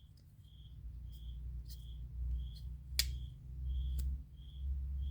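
Faint high chirp repeating about every two-thirds of a second over a steady low hum, with two sharp clicks about three and four seconds in.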